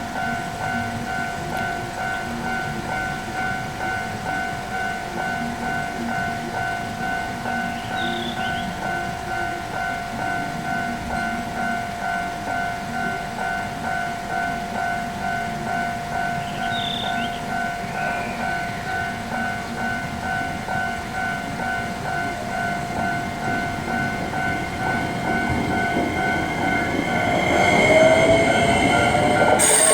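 Japanese level-crossing warning bell ringing steadily, an even, rapid electronic 'kan-kan' ding repeated over and over, signalling an approaching train. Over the last few seconds the rumble of the train grows louder as it nears the crossing.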